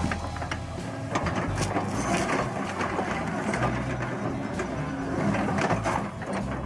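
Heavy forestry machine running under load, its engine humming low beneath continual cracking and crunching as wood is broken up.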